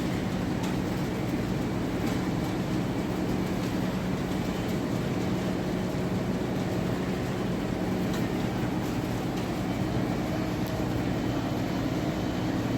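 Potato-handling machinery (the sorter and conveyors piling potatoes into the storage cellar) running with a steady, even drone and a constant low hum.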